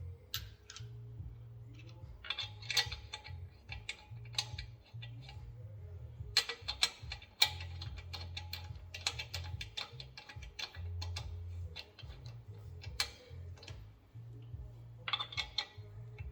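Ratchet wrench clicking in quick bursts while running the lug nuts on to mount the wheel, with a low, blocky background hum or music underneath.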